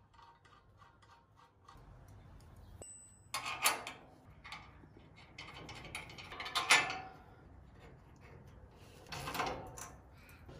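Steel suspension parts knocking and scraping as a hub knuckle is fitted by hand onto the ball joint of a tubular upper A-arm: faint clicks and three short bursts of clinking about three seconds apart, the loudest near the middle.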